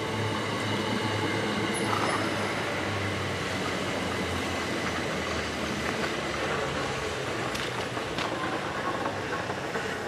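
Southeastern Class 375 Electrostar electric multiple unit moving along the platform: a steady rumble and hum from the train, with a few short sharp clicks about two seconds in and near the end.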